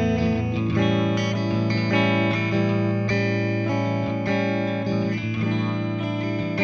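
Chibson Gold Top electric guitar played as a sound test: a run of picked notes and chords, changing several times a second and ringing over a held low note, with a light crunch of overdrive.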